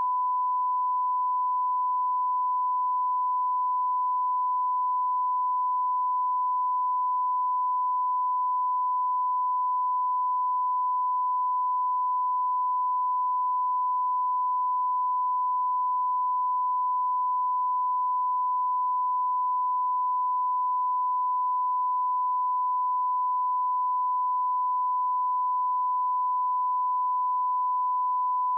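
A 1 kHz sine-wave test tone: one pure, unchanging pitch at an even level.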